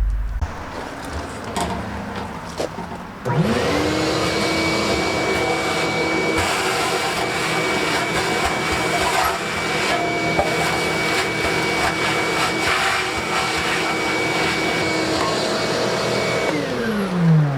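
Vacuum cleaner switched on about three seconds in, its motor quickly rising to speed and running steadily while sucking water out of the forklift's fuel tank, then switched off near the end, winding down with a falling pitch.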